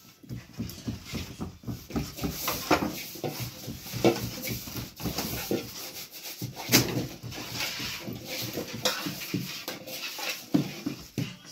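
Fingertips pressing dimples into flatbread dough on a floured table: a quick, irregular run of soft dull taps, with one sharper knock a little after halfway.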